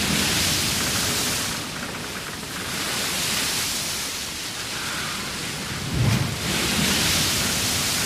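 Sea water rushing and splashing along the hull of a large ship under way, surging every two to three seconds. A brief low thud comes about six seconds in, just before the last surge.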